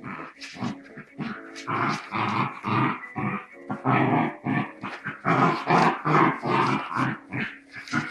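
A wire-haired dachshund and a Cairn terrier growling and snarling at each other in a play fight, in quick repeated bursts that grow louder about two seconds in.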